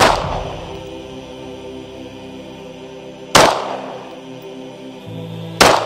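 Three shots from a Glock 19 9mm pistol: one at the start, the second about three and a half seconds later and the third about two seconds after that, each with a short echoing tail. Background music plays underneath.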